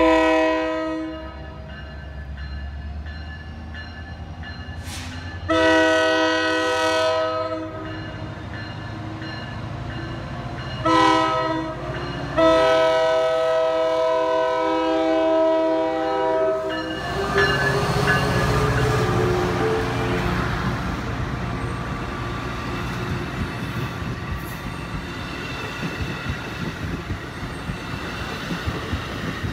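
New Jersey Transit PL42AC diesel-electric locomotive sounding its multi-note horn in the grade-crossing pattern: long, long, short, then a long blast held until about 17 seconds in. Then the locomotive passes close by and its multilevel coaches roll through with steady wheel and rail noise.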